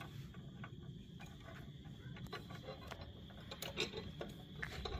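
Scattered light clicks and taps of trade-show booth parts being handled and screwed together, with a small flurry a little before the end. Under them, a steady high chirring of crickets or other night insects.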